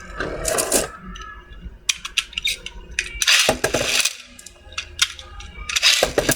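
Beyblade Burst spinning tops clashing and skittering in a plastic stadium: a run of sharp metallic clicks and clatters, with louder flurries of hits about half a second in, around three and a half seconds, and near six seconds.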